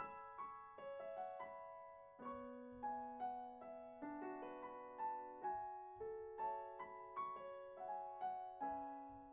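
Slow, gentle piano background music: single notes and soft chords struck one after another and left to ring out.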